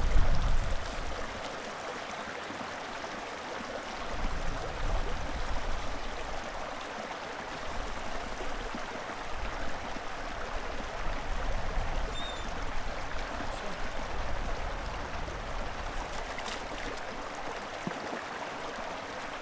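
Small brook running steadily, a constant rush of water, with low rumbles coming and going and a brief high chirp about twelve seconds in.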